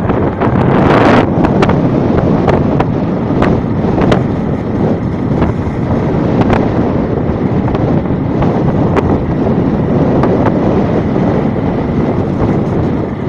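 Heavy rain pouring steadily, with wind buffeting the microphone and scattered sharp taps of drops striking a hard surface. There is a louder rush about a second in.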